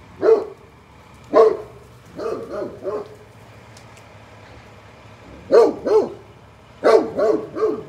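Great Pyrenees giving loud, deep barks in short bursts of one to three, with a pause of about two seconds in the middle: alarm barking at the mail truck.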